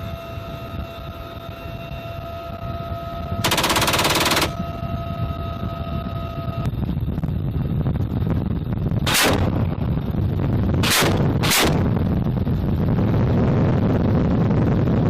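Helicopter-mounted machine gun on a UH-1Y Venom firing a rapid burst of about a second a few seconds in, then three short bursts later. Underneath is the steady whine and rush of the helicopter's turbines and rotor, which grows louder in the second half.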